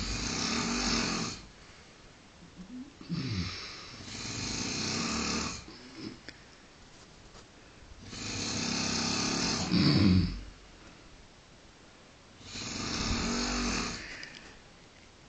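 A sleeping man snoring: about four long, rasping snoring breaths, each lasting a second or two, with quieter pauses between them.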